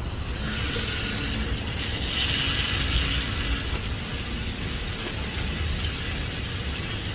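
Shooting range's motorized target carrier running along its track, a steady mechanical whir with a ratcheting edge, starting just after the beginning and running for about seven seconds.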